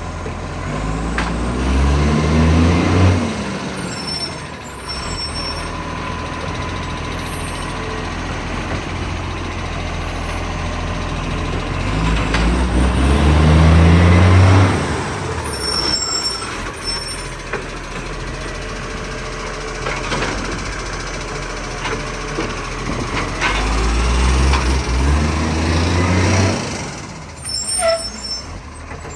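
Garbage truck diesel engine revving up three times, about ten seconds apart, rising in pitch each time and then dropping back to idle, with short air-brake hisses in between. The engine has a huge exhaust leak.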